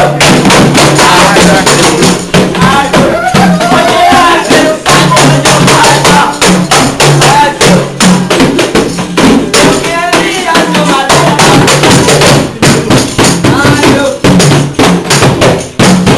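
A group playing music live: fast, dense hand percussion over a stepping bass line, with voices singing.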